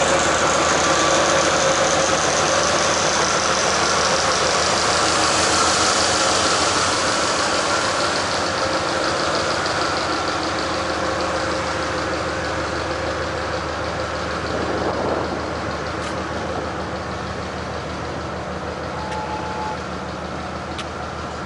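Diesel locomotive engine running steadily with a hiss on top, slowly getting quieter.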